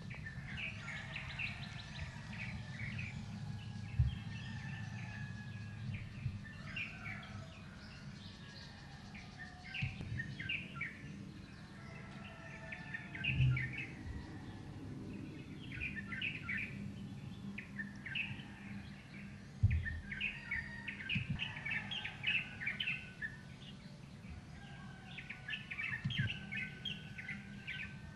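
Small birds chirping and singing again and again, over a steady low rumble, with a few dull thumps, the loudest about 4 and 20 seconds in.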